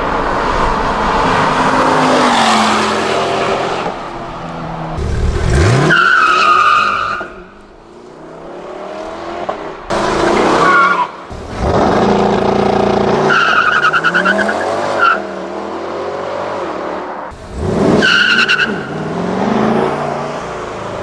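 Chevrolet Corvette C8 Stingray's LT2 V8 revving hard under acceleration in several short clips cut together, its pitch climbing through the gears, with tyres squealing in a few of the launches.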